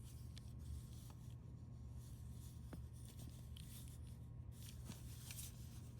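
Faint rubbing and handling noise of a small die-cast toy car being turned over in the hands, with a few light clicks, over a low steady hum.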